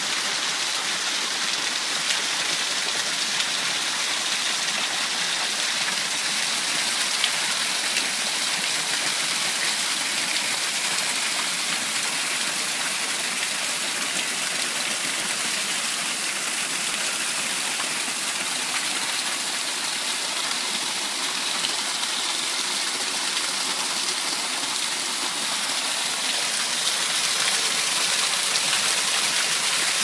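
Small waterfall on a rocky creek, water pouring and splashing over boulders close by: a steady, bright, hissy rush with little deep rumble, swelling slightly near the end.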